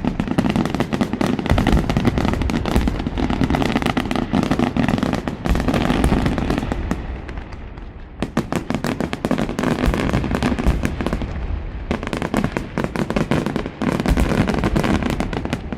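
Fireworks display: a dense, rapid series of bangs and crackles from exploding shells, easing off briefly about halfway through before building again.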